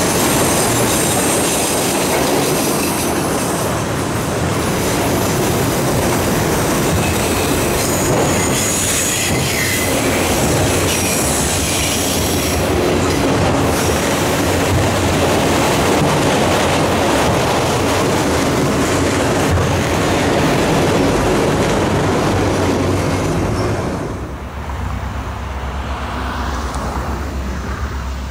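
Freight train of autorack cars rolling past close by: steady wheel-and-rail noise with clickety-clack and high wheel squeal that comes and goes. About four seconds from the end the train noise drops away to a quieter low rumble.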